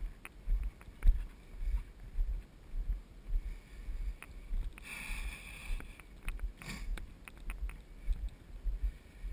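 Steady footsteps of a player walking across a field, heard as dull thuds about twice a second on a body-worn microphone, with a brief hiss about five seconds in.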